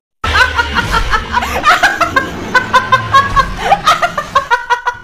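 A young woman laughing hard, a long run of quick, high-pitched 'ha's.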